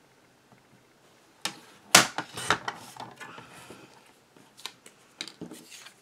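Small cardstock pieces handled and trimmed on a sliding-blade paper trimmer: a few sharp clicks and short scraping strokes, the loudest about two seconds in and a few more near the end.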